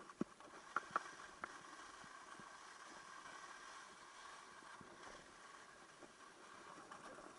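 Skis sliding over packed snow: a faint, steady hiss, with a few sharp clicks in the first second and a half.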